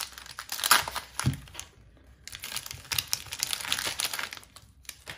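Cellophane wrapper of a trading-card cello pack crinkling as it is peeled open by hand, loudest in the first second or so, easing off briefly, then crackling again.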